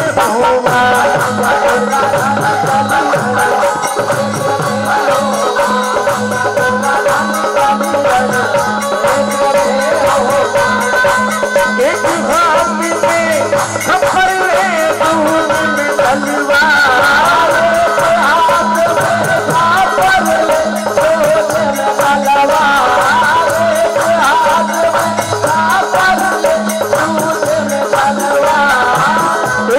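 Live Indian devotional folk music: a harmonium melody over a steady dholak beat, with rattling hand percussion throughout.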